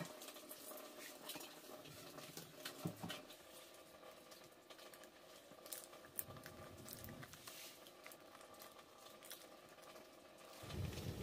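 Faint scattered ticks and light rustling, as of a toddler chewing a snack and handling a plastic bag of sweets. A sharp click right at the start, and a low rumbling noise comes up near the end.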